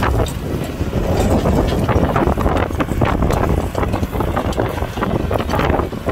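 Kubota tractor's diesel engine running steadily while plowing, with many short clatters throughout and wind buffeting the microphone.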